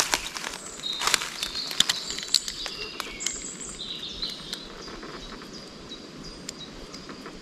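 Small birds chirping and whistling, short high calls scattered through, with faint clicks and rustles that are thickest over the first few seconds.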